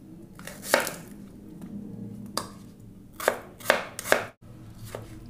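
Kitchen knife slicing a red onion on a wooden chopping board: about five sharp, irregular knife strikes on the board, three of them in quick succession past the middle.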